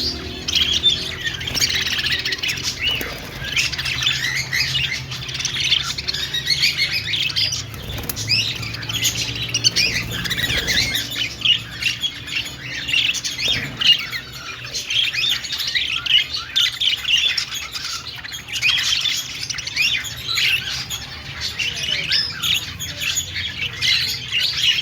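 Budgerigars chirping and warbling, a continuous busy chatter of short squawks and twitters.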